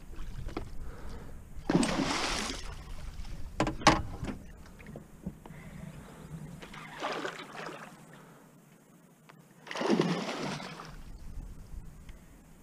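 A large northern pike, hooked on a line beside a small boat, splashing and thrashing at the water's surface in three rushes, about two, seven and ten seconds in. A sharp knock comes just before the fourth second.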